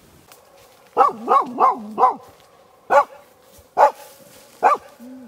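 Laika dog barking: a quick run of four barks about a second in, then three single barks a little under a second apart.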